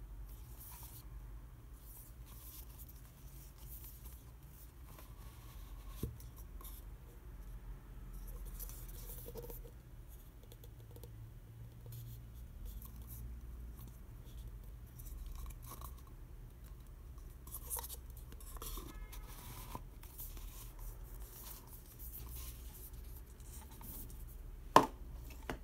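Hands handling a paperboard tube package: scattered soft rubbing and scraping of the cardboard as it is turned over and its lid taken off, over a steady low hum. A small tick about six seconds in, and a sharp, louder click about a second before the end.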